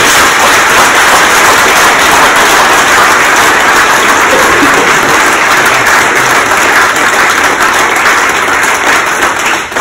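An audience applauding, steady clapping that starts to die away near the end.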